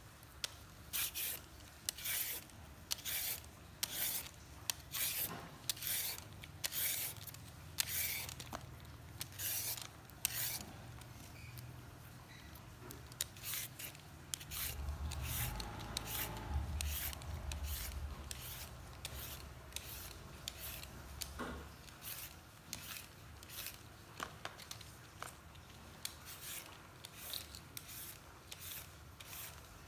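Handheld vegetable peeler scraping along a carrot and other vegetables in quick repeated strokes, about two a second and getting quicker later on. A low rumble is heard underneath in the middle.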